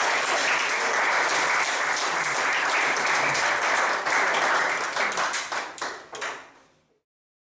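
Audience applauding, thinning into a few scattered claps and dying away about six or seven seconds in.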